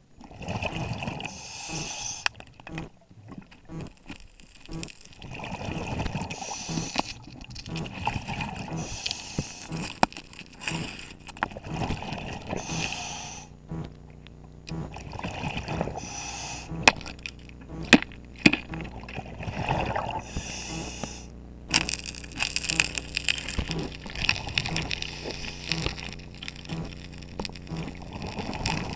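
Scuba diver breathing through a regulator underwater: repeated hissing inhalations alternating with bubbling exhalations, with a few sharp knocks.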